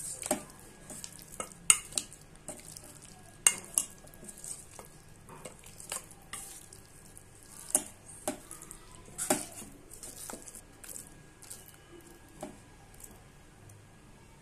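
A metal spoon stirring mutton pieces through a thick masala-and-yogurt marinade in a steel bowl: irregular clinks and scrapes of the spoon against the bowl, tailing off near the end.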